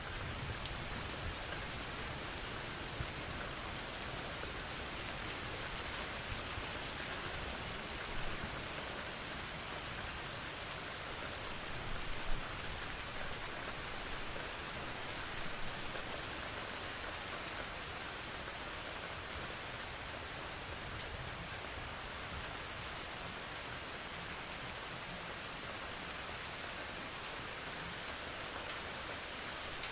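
Steady heavy rain: an even, dense hiss of falling rain, with a few brief louder spatters about 8, 12 and 15 seconds in.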